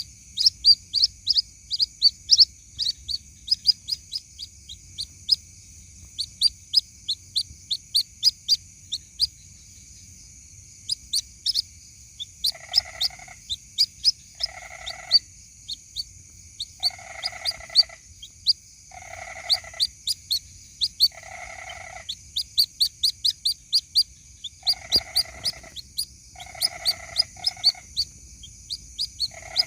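White-breasted waterhen chick calling: rapid runs of thin, high peeps, several a second, with short gaps between runs. From about twelve seconds in, a lower, longer call joins, repeating about every two seconds, over a steady high hiss.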